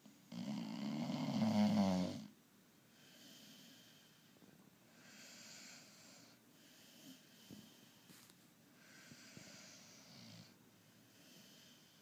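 A sleeping pit bull mix dog snoring: one loud snore near the start, then three quieter, breathy snores a few seconds apart.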